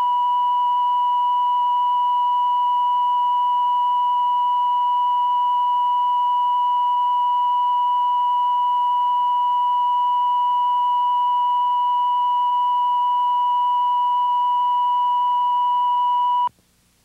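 Videotape line-up tone: a steady 1 kHz reference beep recorded with colour bars for level calibration. It holds one unchanging pitch and cuts off suddenly just before the end.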